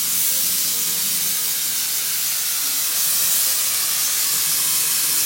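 Spray gun hissing steadily as it sprays fabric paint.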